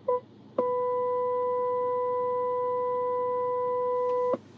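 Chevy Colorado's reverse parking-sensor alert: a last quick beep, then about half a second later one continuous electronic tone that cuts off suddenly near the end. The beeps merging into a solid tone signal that the truck's rear is very close to an obstacle.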